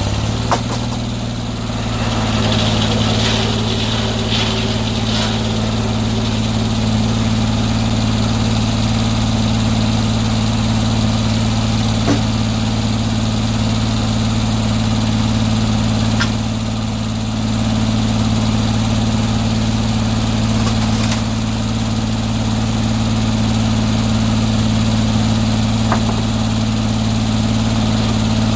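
Portable sawmill's engine running steadily, with a few sharp clicks over it.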